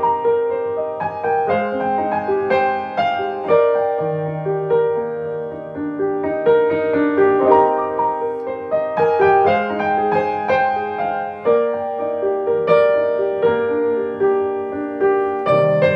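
Music: a piano-type keyboard playing chords with a melody line over them, each new note or chord struck about every half second to second. Just before the end a different passage begins.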